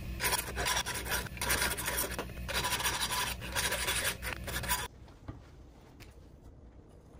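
Hand file rasping across the steel edge of a rusty hatchet head held in a vise, in repeated strokes about one a second. The filing cuts off suddenly about five seconds in, leaving only a few faint ticks.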